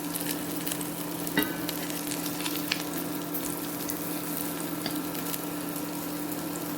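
Cottage cheese pancakes frying in sunflower oil in a frying pan: a steady sizzle with scattered small crackles over a low steady hum, and one sharp click about a second and a half in.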